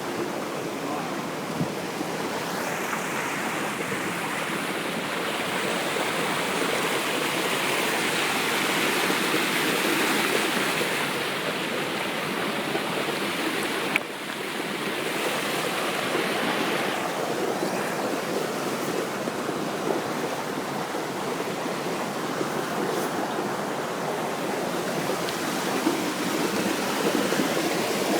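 Steady rush of waterfall water spilling into a pool, swelling for a few seconds around the middle, with one brief click about halfway through.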